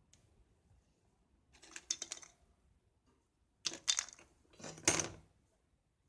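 Small hard objects being handled on a work surface, clicking and clattering in three short bursts, the last the loudest.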